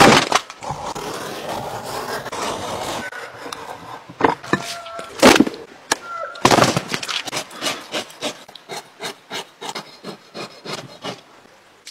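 Rubbing and scraping on hide, with two sharp knocks in the middle; in the second half, a curved blade scraping fat off a stretched cowhide in quick repeated strokes, about four a second.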